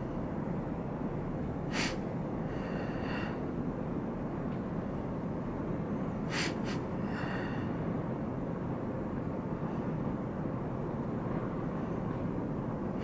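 Steady room ambience, a low hiss and hum, with a short sharp sound about two seconds in and a quick double one about six seconds in, each followed by a faint brief tone.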